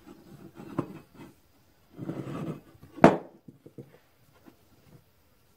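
Fiberglass cloth rustling and crinkling as it is wound tightly around a perforated steel muffler tube. A single sharp knock just after three seconds, as the metal tube meets the wooden workbench, is followed by a few light handling clicks.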